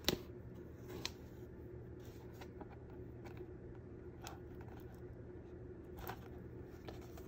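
Faint rustle and a few light clicks of hands handling a paper-and-canvas journal while sewing its spine, drawing thread through the stitching holes, over a low steady hum.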